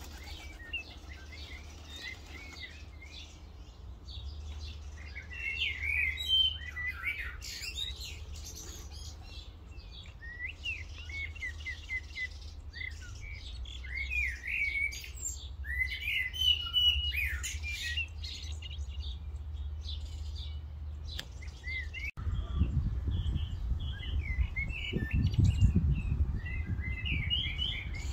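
Birds chirping and twittering in quick, repeated short calls, over a low rumble of wind on the microphone that gets louder and gustier about three quarters of the way through.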